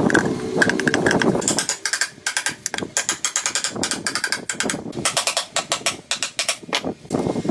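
Rapid ratchet-like mechanical clicking in quick runs of several clicks a second, typical of hand-tool work on a motorcycle rebuild. A dense rasping noise comes first and stops about a second and a half in.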